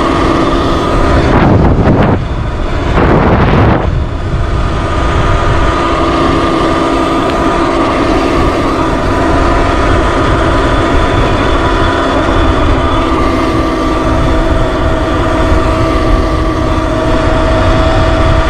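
Sur-Ron X electric bike cruising at a steady speed: the motor and drivetrain whine holds an even pitch over heavy wind rush on the handlebar-mounted microphone. Twice in the first four seconds a louder rushing whoosh swells up and fades.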